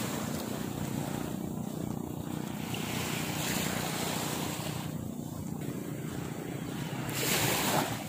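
Small waves washing up on a sandy shore, a steady rushing wash that swells and eases, with a louder rush near the end.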